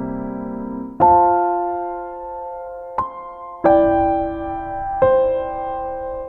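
Background music: slow, soft piano chords, each struck and left to ring and fade, a new one about every second or two.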